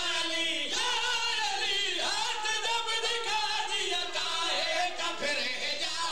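A group of men singing a devotional chant together in chorus, several voices overlapping without a break.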